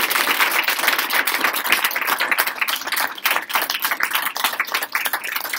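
A small audience applauding, with one pair of hands clapping close by.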